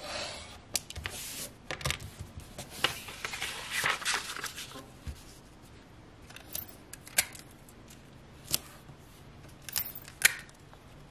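Scissors cutting and rustling a sheet of paper for about the first five seconds. Then a few sharp light taps and rustles as the paper piece is laid under the pattern and pressed flat.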